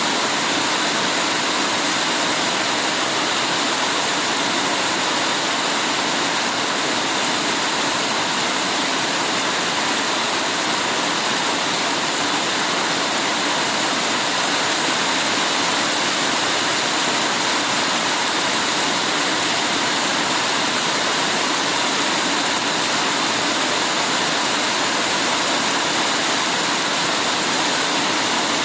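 Heavy rain pouring steadily, a dense, even hiss of water with no breaks or single drops standing out.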